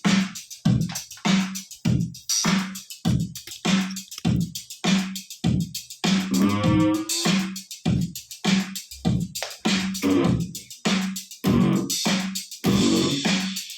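Electric bass played through a Zoom GM-200 multi-effects unit's punk-funk patch: a run of short, choppy staccato notes, about two to three a second, each with a quick filter sweep. A longer ringing note comes about six seconds in.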